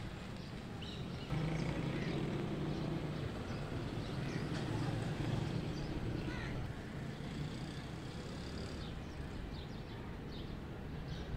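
Outdoor background noise: a low steady rumble that comes up about a second in and eases after about six seconds, with scattered short high chirps.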